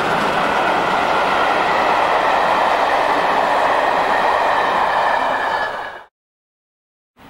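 Coaches of a steam-hauled passenger train rolling past at speed, a loud steady rush of wheel and rail noise. It fades as the last coach goes by and cuts off suddenly about six seconds in.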